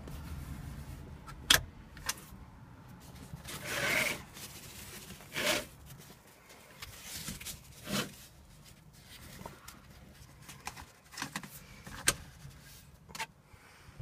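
A car seatbelt being handled: the webbing rubbing and sliding in several short swells, with a few sharp clicks from the belt hardware. The loudest clicks come about a second and a half in and near the end.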